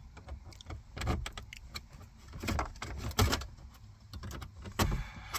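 Irregular clicks, knocks and light metallic rattles of a car radio's metal mounting bracket and wiring being handled and fitted into the dashboard.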